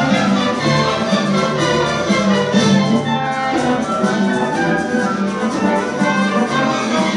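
Symphony orchestra playing live, its violins, cellos and double basses sustaining notes over a steady low line.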